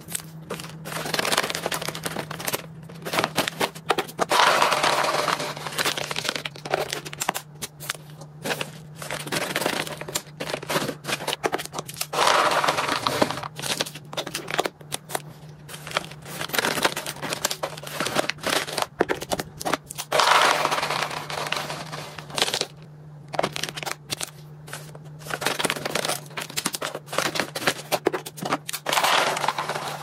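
Stiff plastic pet-treat pouches crinkling and rustling as they are handled, with sharp clicks and taps of clear plastic storage boxes and the dry rattle of freeze-dried treat cubes. Longer rustling swells come every few seconds over a steady low hum.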